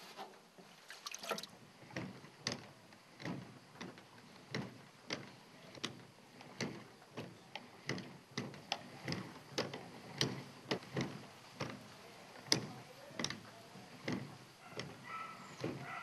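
Pedal-operated washing machine being pedalled, its drum turning with water inside and giving a regular knock about every two-thirds of a second.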